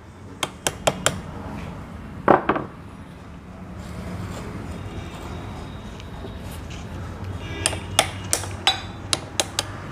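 Sharp metallic taps and clinks as a seal collar is driven into a Mahindra Scorpio power steering rack tube. There are a few quick taps in the first second and a louder ringing knock about two seconds in. A run of clinks follows near the end, over a low steady hum.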